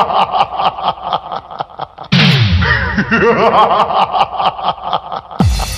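Electronic DJ drop sound effects: twice, a blast of falling pitch sweeps breaks into a fast stuttering repeat, and near the end a deep falling bass drop leads into music.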